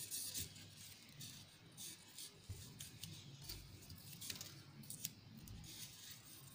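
Rolled newspaper tubes being bent and folded over by hand: faint, irregular paper crinkling and rustling, with a few soft low bumps.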